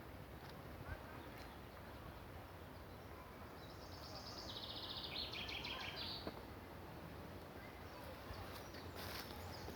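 Faint steady background noise with a small songbird's rapid trill a few seconds in, lasting about two and a half seconds and stepping down in pitch partway through.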